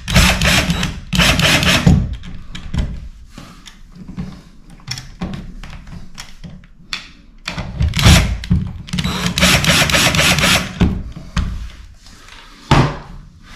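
20V cordless drill-driver running in short bursts as it drives an outlet's mounting screws into the electrical box: two runs in the first two seconds, two more about eight to ten seconds in. A sharp click from handling near the end.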